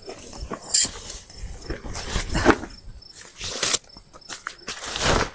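Rustling and knocking of camping gear and bags being handled and shifted, in several irregular bursts, with crickets chirping steadily behind.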